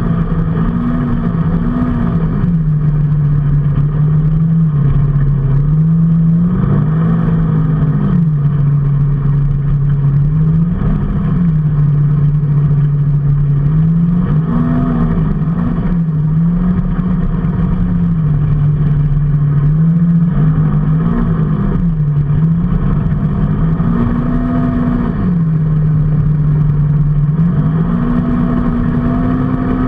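Motor vehicle engine running under way, its pitch rising and falling again and again as it speeds up and eases off.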